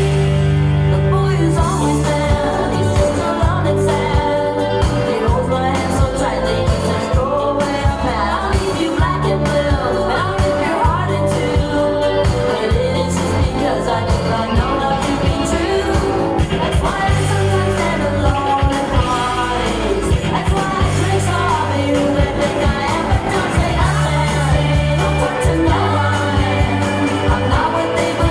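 Recorded pop-rock song: a female lead voice singing over electric guitar, bass and drums, in late-1980s new wave style.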